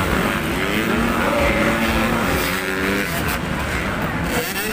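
Several motocross bikes' engines revving on a dirt track, their pitch rising and falling as the riders work the throttle.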